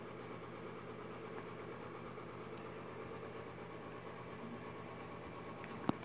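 Steady low mechanical hum, like a household appliance running, with one sharp click just before the end.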